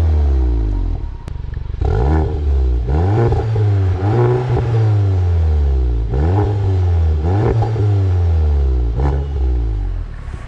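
Volkswagen Mk7 GTI's turbocharged 2.0-litre four-cylinder revved repeatedly through a Clubsport muffler with the resonator deleted: about six quick rev blips, each climbing and then falling back, with a brief dip in between.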